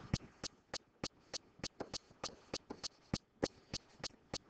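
Faint, sharp clicks repeating evenly about three times a second, with quiet between them.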